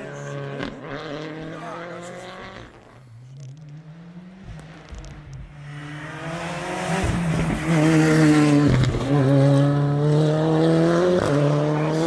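Rally car engine at full throttle, its pitch climbing and dropping repeatedly as it works through the gears. It is fainter in the first half and gets much louder from about the middle as the car comes close.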